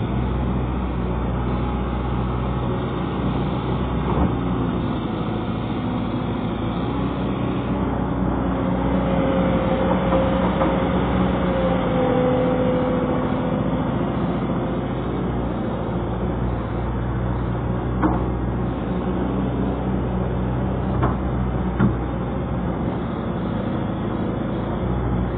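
Excavator's diesel engine running steadily, with a higher whine joining for a few seconds around the middle and a few short knocks.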